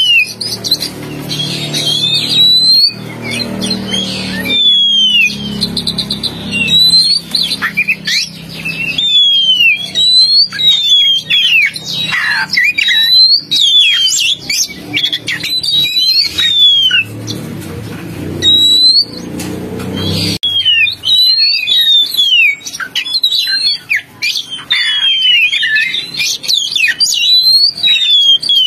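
Oriental magpie-robin (kacer) singing: a fast, continuous run of loud whistled notes, many sweeping down in pitch, with short breaks between phrases. This is the kind of song recording played as a lure (pikatan) to call in magpie-robins.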